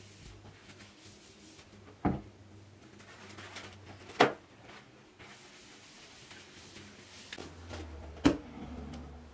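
Kitchen handling sounds: three sharp knocks of things being set down on a stone benchtop, each louder than the last, between soft rustling of paper towel being wiped and torn off the roll.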